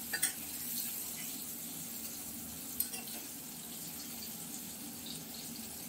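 Fried vegetables (potato, brinjal and flat beans) sizzling steadily in hot oil in a pan, with a light click about three seconds in.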